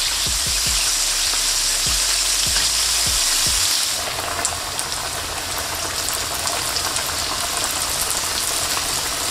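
Flour-coated chicken wings deep-frying in hot oil in a wok: a dense, steady sizzle full of crackling pops. A few dull knocks sound in the first few seconds, and about four seconds in the sizzle turns slightly softer and more crackly.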